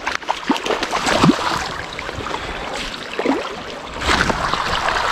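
River water splashing and sloshing as a hooked trout is worked into a landing net, with irregular splashes that grow louder about four seconds in.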